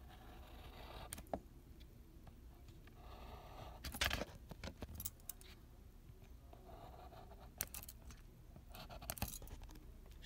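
Faint scratching of a pen drawing strokes on sketchbook paper, in several short patches, with a few sharp clicks, the loudest about four seconds in.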